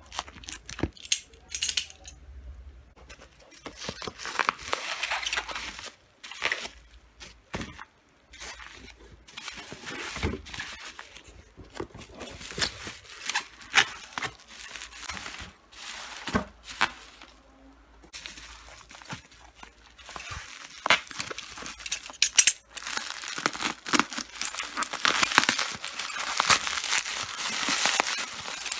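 Lightstick packaging being unboxed by hand: plastic and paper crinkling and tearing, with scattered taps and clicks of a box being handled. The crinkling becomes denser and steadier in the last several seconds.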